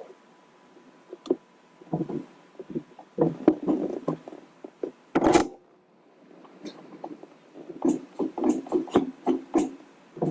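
Handling sounds of a shift knob being screwed down onto a car's shifter: irregular rubbing, light knocks and the creasing of the leather shift boot as it bunches up under the knob.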